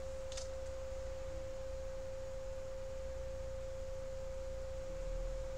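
A steady single-pitch whine that does not change, over a low hum, with a faint tick shortly after the start.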